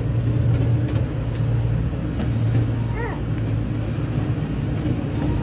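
Miniature park train running, heard from a riding car: a steady low hum with rolling noise.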